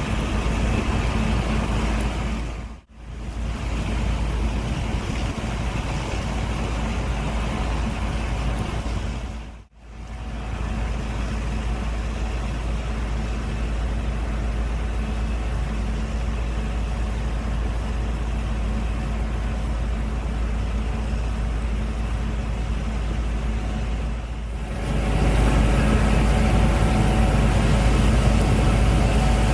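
Gleaner S98 combine harvester running steadily as it picks up and threshes an oat swath, a constant heavy machine drone with a deep rumble. The sound drops out briefly twice, about three and ten seconds in, and gets louder near the end.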